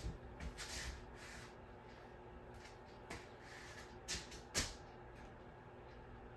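Scattered handling noises from someone moving things about: rustling and a few light clicks, then one sharper knock a little over four and a half seconds in, over a faint steady hum.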